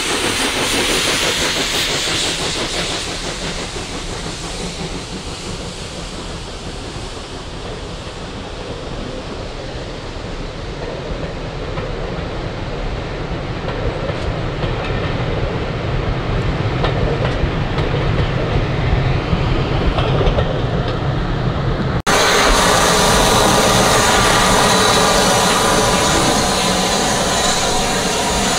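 A double-headed steam train passing, the locomotives' exhaust and steam hiss giving way to the rolling clatter of the carriages, which fades and then builds again. After a sudden cut about 22 seconds in, a louder steady hiss of steam from a locomotive standing in a station.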